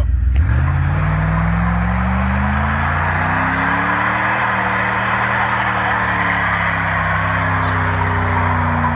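Dodge Durango's engine revving hard from idle and held at high revs, its pitch wavering, over a loud continuous rasp of spinning tyres, as in a burnout.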